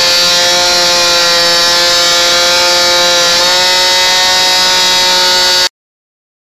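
A small power tool whining steadily under load, taking the black forge scale off a small forged steel blade. Its pitch dips slightly about halfway, and it cuts off abruptly near the end.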